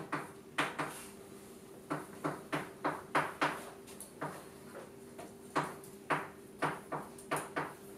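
Chalk tapping and scratching on a blackboard as an equation is written: a quick, irregular run of short sharp taps, several a second, with brief pauses.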